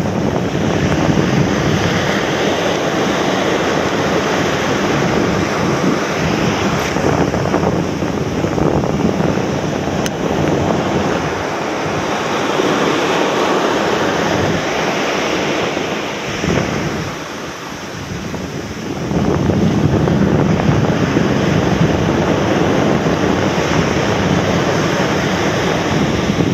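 Surf breaking and washing up a sandy beach, with strong wind buffeting the microphone. The rush of the waves swells and eases, drops back for a few seconds about two-thirds of the way through, then comes in louder again.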